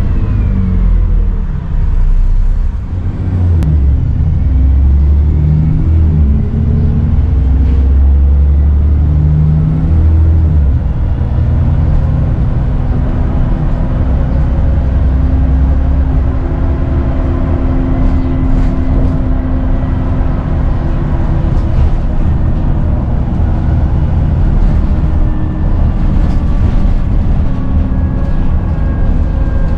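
Dennis Trident 2 double-decker bus engine heard from on board. It eases off in the first couple of seconds, then pulls away and accelerates with a heavy low drone. It then runs on more steadily with a slight turbo whistle.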